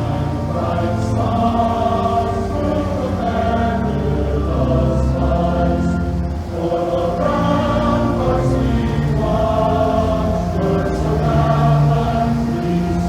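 Choral background music: a choir singing slow, held chords over a low bass, which drops away about halfway through.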